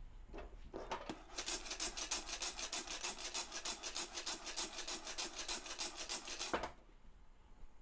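Coffee beans rattling and sliding in a glass-lidded saucepan as it is shaken briskly over a gas burner during pan roasting, mid-roast before first crack, in a fast even rhythm. It stops with a knock near the end as the pan is set back down.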